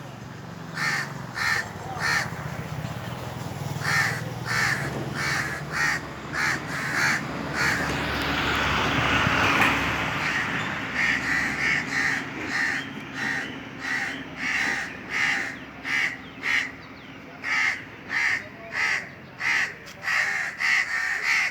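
Indian crows cawing, a long series of short, harsh caws in runs with brief gaps. Around the middle a rushing noise swells and fades beneath the calls.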